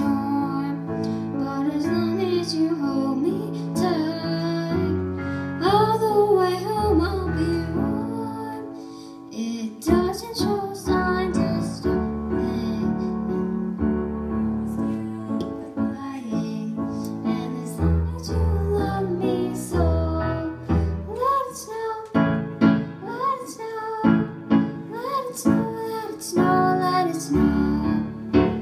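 A young girl singing a song into a microphone over an instrumental accompaniment of held chords and a bass line.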